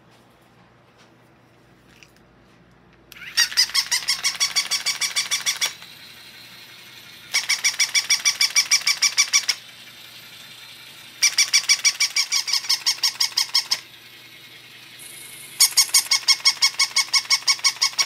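Battery-operated plush walking toy dog's electronic sound chip playing rapid squeaky yips through its small speaker, in four bursts of about two and a half seconds, each a quick run of about eight yips a second.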